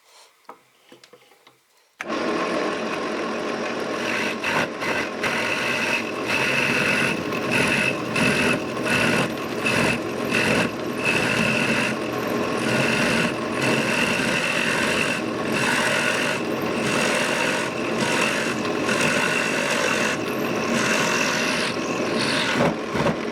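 Drill press running a wooden-ball cutting bit through clamped wood, starting abruptly about two seconds in: a steady cutting noise with a held high whine, briefly dipping again and again. The cut runs smoothly, with no hits or rattling, because the wood is clamped.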